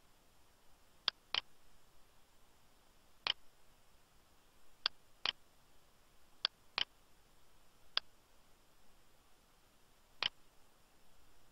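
Computer mouse button clicking: nine sharp clicks spread through the stretch, several in quick pairs, over a faint steady hiss.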